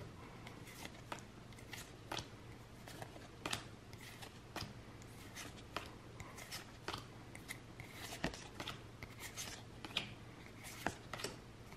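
Pokémon trading cards being flipped through by hand, one at a time: faint, irregular soft clicks and slides of card stock against card stock.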